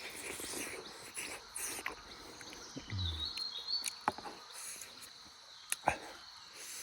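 Insects chirping in a steady high trill, with a few sharp clicks, two of them close together near the end.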